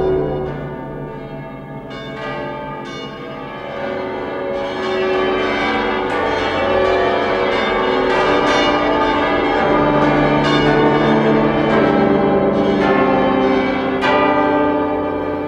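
Many large church bells pealing together, struck over and over with their ringing tones overlapping.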